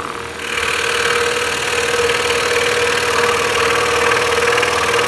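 Axminster Trade scroll saw running with a steady hum while its blade cuts slowly through a deep block of timber, a hissing rasp that sets in about half a second in and holds steady.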